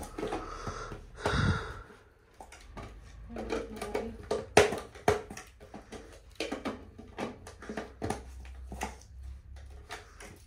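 Handling noises as items are unpacked and fitted: a run of short clicks and knocks, with a louder bump about a second and a half in.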